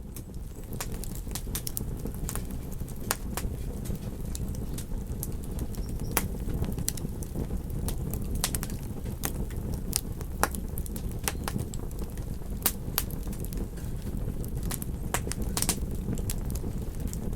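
Wood campfire crackling, with frequent sharp pops and snaps at irregular intervals over a steady low rush.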